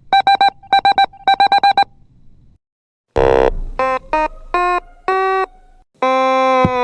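Electronic telephone ringing in three short trilling bursts, followed by a run of short electronic tones at different pitches. A long buzzing tone that sinks slightly in pitch comes near the end.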